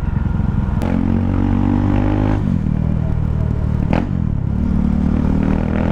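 KTM Duke 390's single-cylinder engine running through an open pipe with no muffler, under way. Its note steps to a new pitch about a second in and again around two and a half seconds, with a short click about four seconds in.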